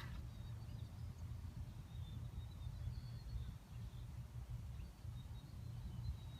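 Faint outdoor ambience: a steady low rumble with faint, short, high chirps scattered through it.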